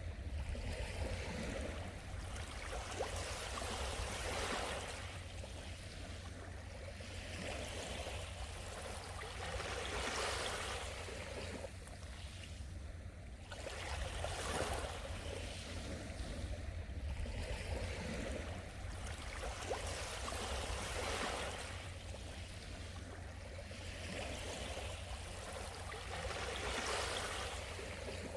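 Small sea waves washing onto the shore and drawing back, one swell every three to four seconds, over a steady low rumble.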